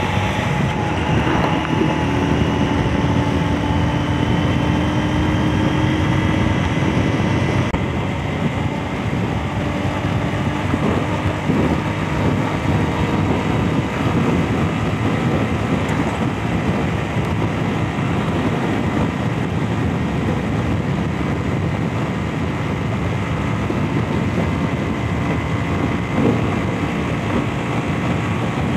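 Honda CG 125's single-cylinder four-stroke engine running steadily at cruising speed, mixed with heavy wind and road rush on the helmet-mounted microphone.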